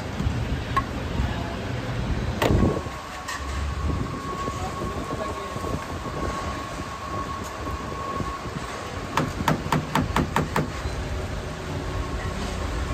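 Metal utensils clattering on stainless steel trays. One loud clank about two and a half seconds in leaves a thin ring hanging for several seconds. Near the end comes a quick run of about eight sharp knocks, over a low steady rumble.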